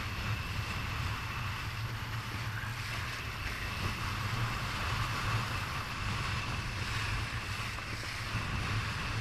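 Steady wind buffeting the microphone over a constant rush of water and spray along the hull of a Laser 2 sailing dinghy planing at speed.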